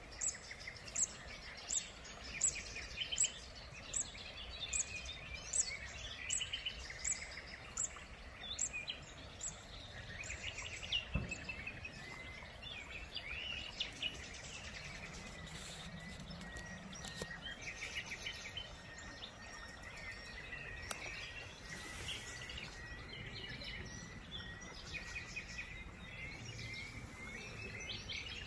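Birds singing: a run of sharp, high, repeated notes a little under a second apart for about the first ten seconds, then scattered chirps over a thin, steady high note.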